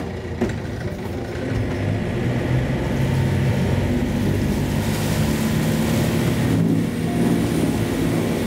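A sailboat's inboard diesel engine running at high throttle, its note getting a little louder over the first few seconds, while the boat stays put: the hull is aground with the keel buried in mud.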